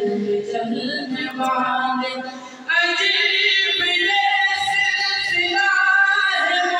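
A young male vocalist singing a devotional manqabat into a stage microphone, heard through the loudspeakers. About two and a half seconds in, he moves up to a louder, higher-pitched held line.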